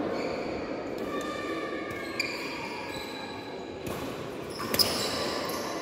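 Badminton rally: shoes squeaking on the court floor, with two sharp racket hits on the shuttlecock, one about two seconds in and one near the end.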